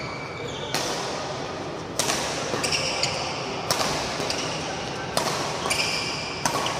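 Doubles badminton rally: rackets smacking the shuttlecock five times, roughly one stroke every second and a half, each hit ringing on in the hall. Between strokes, shoes squeak briefly on the court mat.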